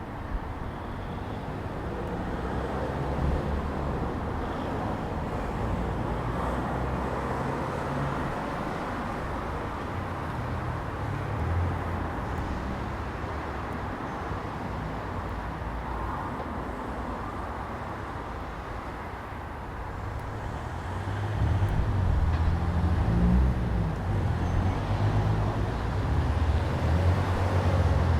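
Outdoor ambience dominated by a steady low rumble, which grows louder about two-thirds of the way through.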